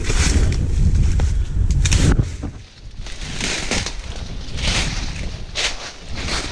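Footsteps crunching through dry leaf litter and brushing through scrub, a crackle every half second or so. Wind rumbles on the microphone for the first two seconds.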